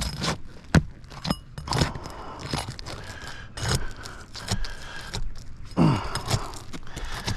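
Roof shingles being pried up against their sealed strips: a run of irregular sharp clicks, crackles and scrapes as the shingles tear instead of releasing, a sign that the prying is damaging the roof.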